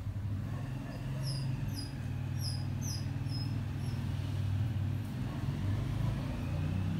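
Steady low droning hum, with a quick series of about six short, high, falling chirps starting about a second in.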